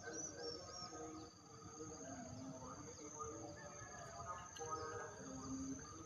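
Insects trilling in a steady, high-pitched drone, with fainter wavering tones lower down.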